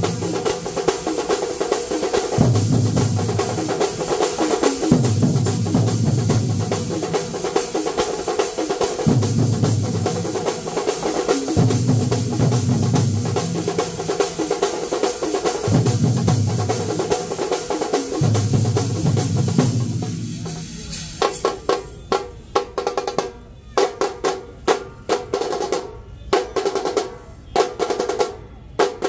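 Massed chenda drums of two combined troupes playing the kalasham (finale) of a melam: dense rolling drumming with deep beats coming in blocks of about two seconds at a time. About twenty seconds in, the rolling stops and the drummers strike together in separate sharp strokes with short gaps between them.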